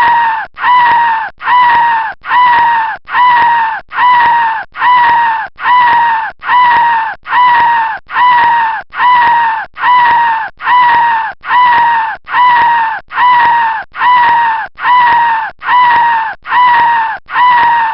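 A looped stock sound effect: one short cry that falls in pitch, repeated identically about four times every three seconds.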